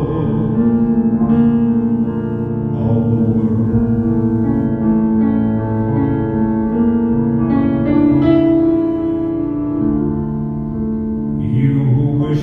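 Piano played live: slow, sustained chords that change every second or two.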